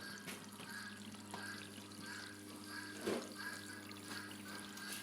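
Washing machine water inlet valve open, with a steady low electrical hum and water hissing through it, and a short faint chirp repeating about twice a second.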